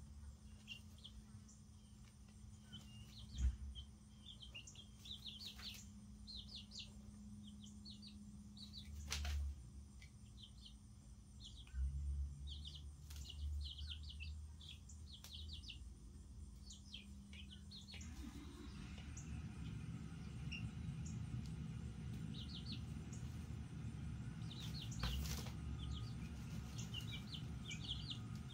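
Couple-week-old baby chicks peeping: many short, high chirps all through, with a few sharp knocks. Underneath is a low steady hum that turns into a louder rushing background noise about two-thirds of the way in.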